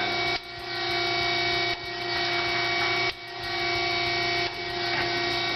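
Acer 10" x 20" 3-axis automatic surface grinder running in its automatic cycle: a steady hum from the spindle and hydraulics with grinding noise, the sound dipping sharply and building again about every second and a half as the table strokes back and forth.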